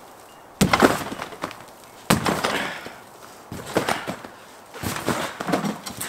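Person bouncing on a JumpSport AlleyOop rectangular trampoline: four landings on the mat roughly a second and a half apart, each a sudden thump that dies away over about a second.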